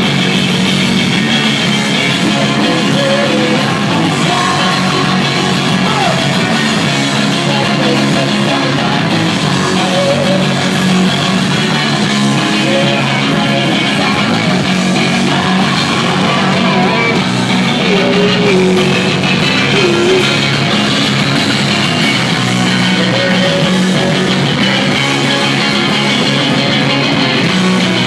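Live garage rock band playing loud and without a break: electric guitars, bass and drums.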